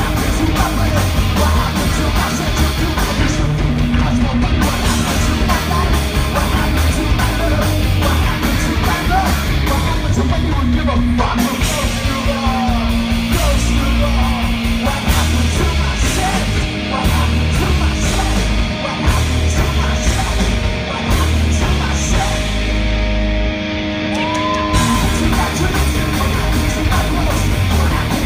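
Live punk rock band playing loud through the stage PA: distorted electric guitar, bass and drums with vocals. About 23 seconds in, the drums and low end drop out briefly, then the full band comes back in.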